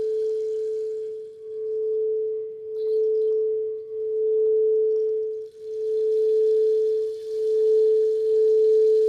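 Singing bowl sustaining one steady pure tone, its loudness swelling and dipping in a slow wavering pulse about every second and a half.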